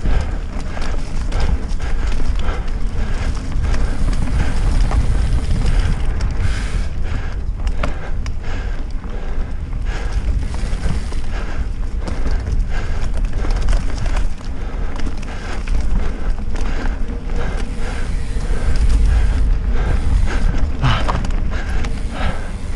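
Mountain bike ridden fast on a dirt singletrack: wind buffeting the microphone over a steady tyre rumble, with frequent clicks and rattles from the bike jolting over bumps.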